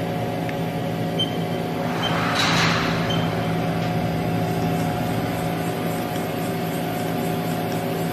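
Haas EC-500 horizontal machining center running: a steady mechanical hum made of several steady tones. A brief hiss rises and fades about two and a half seconds in.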